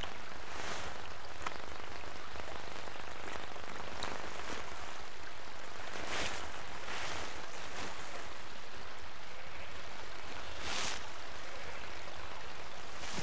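A hooked small fish splashing at the water's surface as it is drawn in, a few soft splashes over a steady rush of water.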